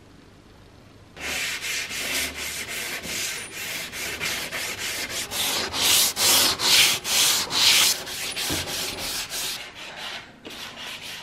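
Wooden board being hand-sanded with sandpaper on a sanding block: steady back-and-forth rasping strokes, about three a second, starting about a second in.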